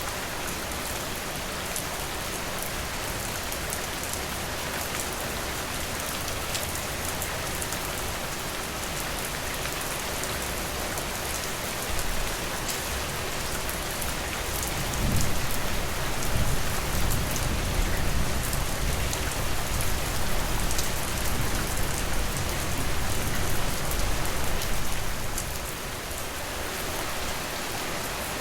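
Steady rain falling, with scattered individual drop ticks. About halfway through, a low rumble of distant thunder rolls for around ten seconds and then fades.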